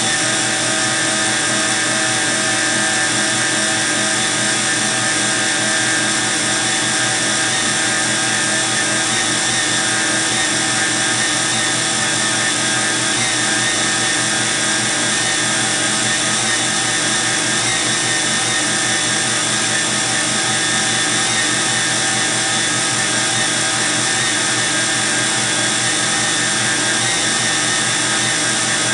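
Electric stand mixer running steadily, its motor humming with a constant whine as it beats cake batter in a stainless steel bowl.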